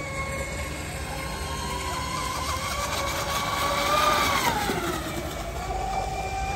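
High-pitched whine of brushless electric RC racing boats running flat out on the water. One boat passes close about four seconds in, getting louder and then dropping in pitch as it goes by.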